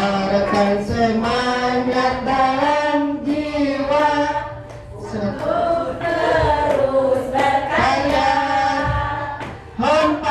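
A group of voices singing a school march song in unison, with long held notes and a short break between phrases about halfway through.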